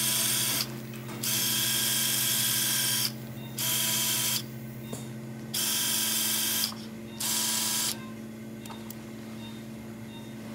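Stryker powered surgical wire driver whirring at high speed in short bursts, five on-off pulls of the trigger, as it advances a K-wire through the fibula into the tibia; the last burst stops about eight seconds in.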